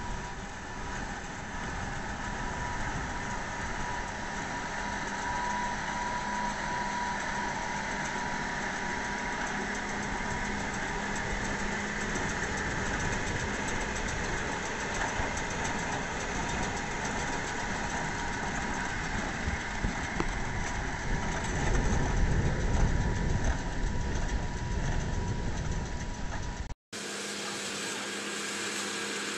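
Farm tractor engine running under load while pulling a small square baler through a straw windrow, with a low rumble that swells for a few seconds. Near the end it cuts abruptly to a different tractor running with a steadier hum.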